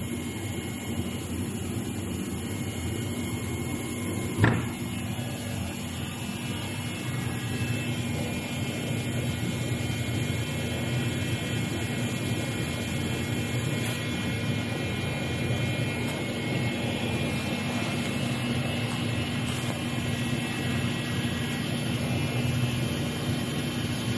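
Steady hum of running machinery, with several held tones. There is one sharp knock about four and a half seconds in.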